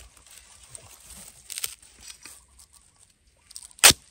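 Faint crackling of dry bamboo litter, then one sharp, loud blade strike into the base of a wild bamboo shoot near the end, as the shoot is cut.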